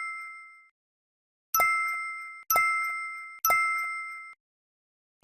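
Bright bell-like ding sound effect, struck and ringing away. One is fading out at the start, then three more come about a second apart, each clipped off as the next begins.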